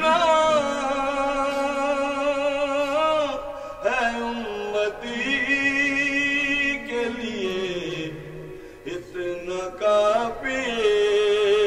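A single man's voice chanting devotional verse in long, wavering held notes, phrase after phrase with short breaks between, amplified through a microphone.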